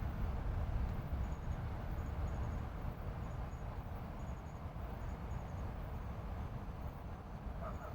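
Low, steady rumble of a helicopter circling at a distance. Faint short high chirps of insects repeat about once a second over it.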